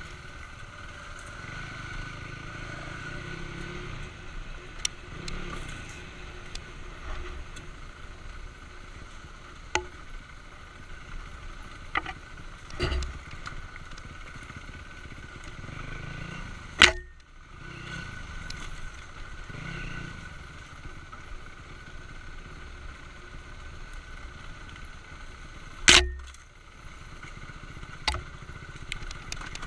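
Dual-sport motorcycle engine running steadily at low trail speed, with sharp knocks as the bike jolts over rocks and ruts; two knocks, about 17 and 26 seconds in, are much louder than the rest.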